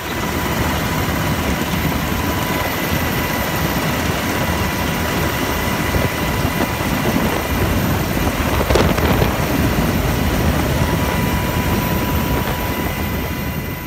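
Helicopter heard from inside the cabin with the door open: rotor downdraft and engine running loud and steady as it comes down low over the water onto a ship's flight deck, with a thin steady whine above the noise. A short knock comes about nine seconds in.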